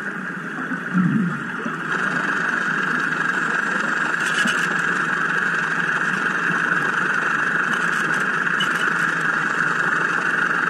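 Steady engine drone heard underwater, muffled by the water and camera housing, typical of the surface compressor's engine that feeds a hookah diver's air hose.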